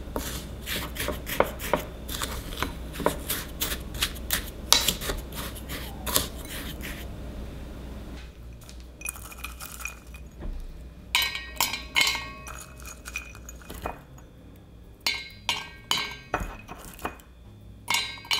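A spoon scraping and clicking against a glass mixing bowl of brown sugar and cinnamon, a dense run of small clicks. Then walnut pieces dropped one by one into a metal bundt pan, each landing as a sharp click with a short metallic ring, in three quick clusters.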